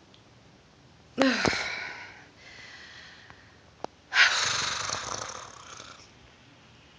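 A woman's two heavy breaths out: a sudden exhale with a short falling voiced note about a second in, then a louder, longer breathy exhale through the open mouth about four seconds in.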